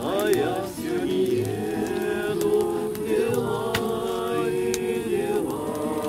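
A group of men's and women's voices singing a hymn together in long held notes, with an acoustic guitar strummed along.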